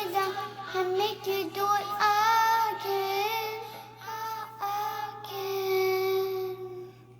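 A female voice singing unaccompanied, with vibrato, ending on one long held note that stops about seven seconds in. A faint steady hum runs underneath.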